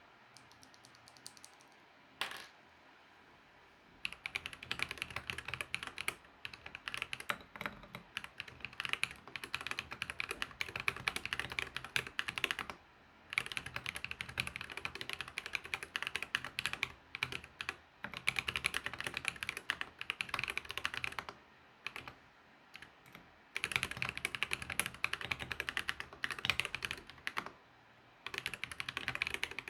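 Typing on a custom mechanical keyboard: an ID67 with an acrylic bottom, Akko Cream Yellow V3 Pro linear switches, Durock stabilizers and Akko keycaps. A few scattered key taps lead into a fast, dense run of keystroke clacks about four seconds in, broken by several brief pauses.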